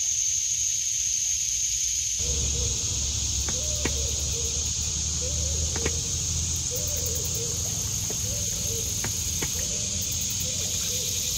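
Steady high-pitched drone of insects in the surrounding woods. From about two seconds in, a short lower call repeats roughly once a second beneath it, with a few light ticks.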